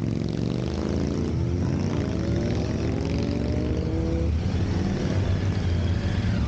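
Several motorcycles riding past one after another, their engines overlapping and rising and falling in pitch as each pulls away.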